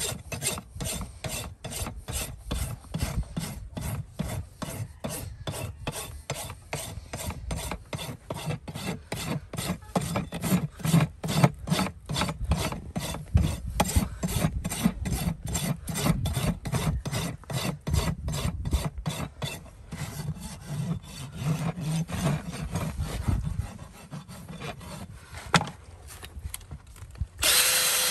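A farrier's hoof rasp filing a horse's hoof wall, scraping back and forth at about two strokes a second, the strokes growing less distinct in the last third. About a second before the end a handheld cordless power tool starts up and runs steadily, louder than the rasping.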